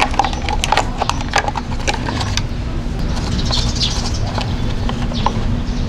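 Quick clicks and knocks of hard plastic parts being handled and fitted: a plastic coolant reservoir pushed into its plastic tire-hugger bracket. The clicks are densest in the first couple of seconds. A bird chirps briefly about halfway through.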